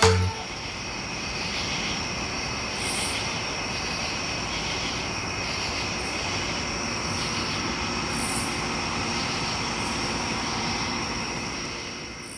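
Night-time outdoor ambience: a steady high insect chorus with brief louder buzzing calls every few seconds, over a low distant rumble. It fades out near the end.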